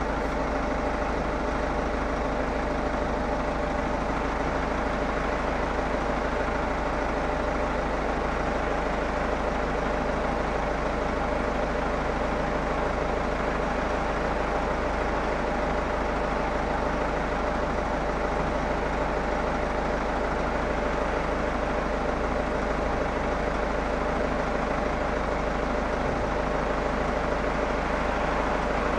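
Steady idling engine hum with a few constant tones in it, unchanging throughout; the windshield wipers' sweeps do not stand out from it.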